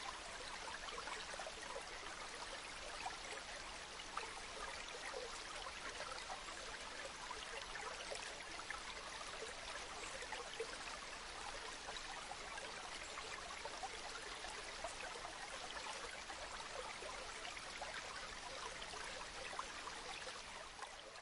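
Steady rain with running water: an even hiss of many small drops, fading out near the end.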